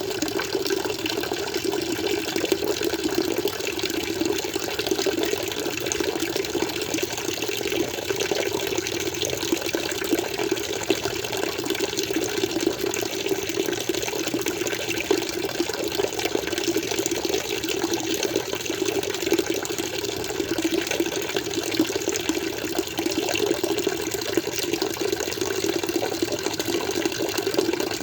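Aquarium water flowing steadily, an even, unchanging rush of moving water.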